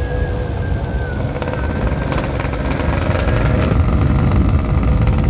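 Yamaha RX King's single-cylinder two-stroke engine running while the bike is ridden, its level building gradually.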